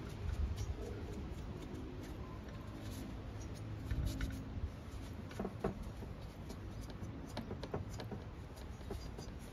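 Towel rubbing and scrubbing over the bare engine of a STIHL FS250 brush cutter, with scattered light clicks and taps as it is handled, over a low rumble.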